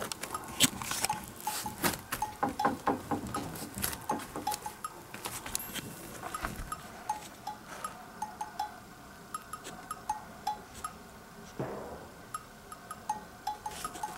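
Light background music of short, bell-like notes, with a run of sharp clicks and knocks in the first few seconds.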